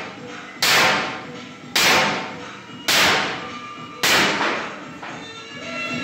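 Hammer blows on the steel shell of a concrete mixer drum: four hard strikes about a second apart, each ringing on through the hollow drum.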